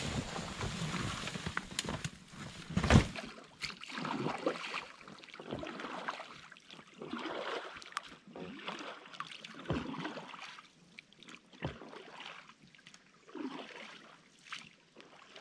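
Water splashing and sloshing around a small rowing boat as it is rowed, with irregular swishes of oar strokes and one loud knock about three seconds in.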